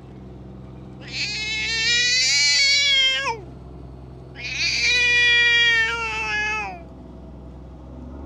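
A feral cat yowling: two long, drawn-out calls, each over two seconds, that slide down in pitch at the end. These are the threat yowls of a cat squaring up to another cat.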